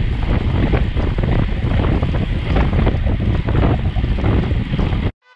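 Heavy wind buffeting the microphone of a camera riding along on a road bike at speed, a dense low rumble that cuts off suddenly about five seconds in.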